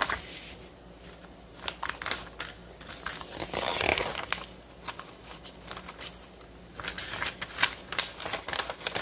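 A folded paper instruction sheet being unfolded and handled: crisp rustling and small crackles of paper, with the biggest rustle about four seconds in as the sheet is opened out.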